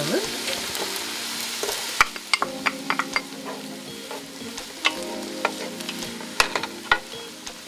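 Chopped onions, celery, carrots and peppers sizzling in olive oil in a non-stick stock pot as they are sautéed and stirred with a wooden spoon. From about two seconds in, the spoon knocks and scrapes against the pot in irregular sharp clicks over the sizzle.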